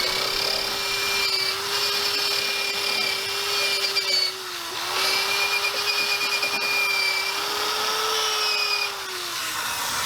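A high-speed power tool with a small abrasive attachment grinds seam sealer off the car's sheet-metal chassis. Its motor holds a steady pitch over a rough scraping. The pitch sags briefly about halfway through, as the tool bogs under pressure, and falls away near the end as it lets off.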